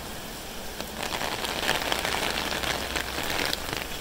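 Rain falling on a wet street, growing louder from about a second in.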